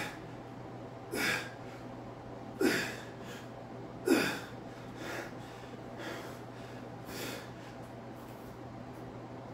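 A man breathing out hard with a short grunt on each rep of a seated dumbbell shoulder press. There are three strong exhales about a second and a half apart, then three weaker ones about a second apart, and the breathing stops over the last two seconds.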